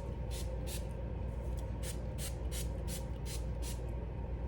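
Pump spray bottle of curl-defining conditioner being pumped over and over onto a wig: short hissing sprays, about two to three a second.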